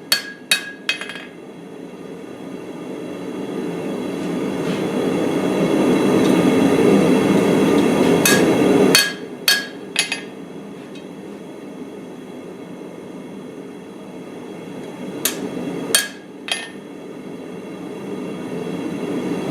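Hand hammer striking a hot steel cleaver blade on an anvil to flatten it, in three short runs of a few blows each. Between the runs a steady rushing noise swells and fades.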